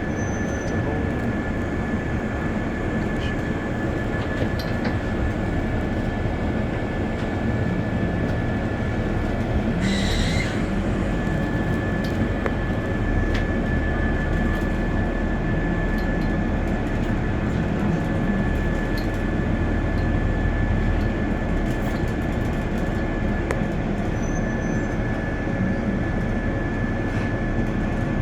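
A vehicle's steady low rumble with a constant high-pitched whine, and a short hiss about ten seconds in.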